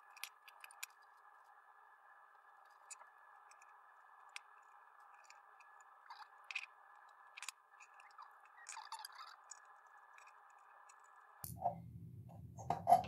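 Small screwdriver and loose screws clicking and tapping on a mini amplifier's extruded aluminium case as the screws are taken out. The clicks are faint and scattered, over a faint steady hiss.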